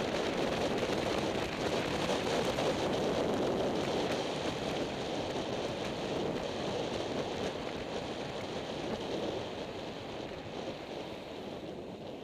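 Steady rushing noise of air and inline-skate wheels rolling on asphalt, picked up by a camera carried by a skater riding downhill at speed; it fades gradually.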